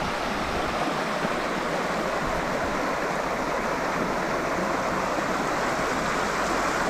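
Small creek's water running steadily over rocks.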